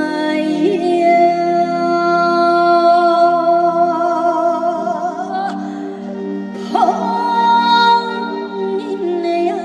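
Trot song sung live by a woman over instrumental accompaniment, with a long held note with vibrato from about a second in, and another shorter held note near the end.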